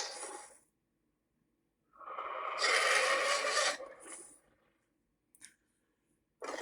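Varan's monster roar sound effect, played as separate harsh, raspy calls with dead silence between them: one trailing off at the start, a full roar of about two and a half seconds from about two seconds in, and the next beginning at the very end.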